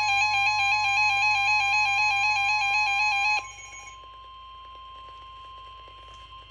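Weather radio alert tones: a loud, harsh alarm that alternates between two pitches sounds over a steady single tone near 1,050 Hz, the NOAA Weather Radio warning alarm tone that comes before a warning. About three and a half seconds in the alternating alarm stops, and the steady tone goes on more quietly.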